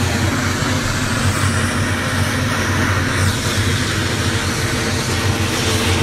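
Mil Mi-17-family twin-turbine helicopter running on the ground, its engines and main rotor making a steady, loud low drone with a wide hiss over it.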